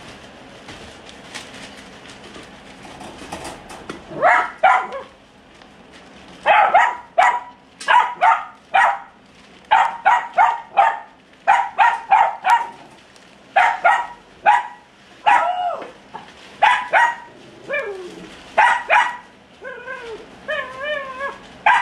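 A dog barking repeatedly in quick runs of two or three barks, starting about four seconds in. Near the end the barks give way to higher, wavering yelps.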